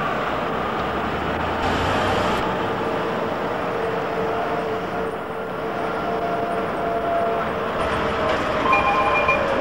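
Street traffic noise while a tourist road train drives slowly past close by, with a faint steady engine tone. Near the end, as a tram comes into view, a brief higher tone sounds.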